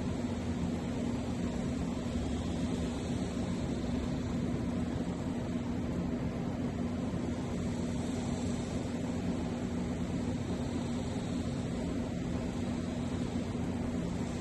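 Steady mechanical hum with an even hiss, unchanging throughout, like a running fan or air unit.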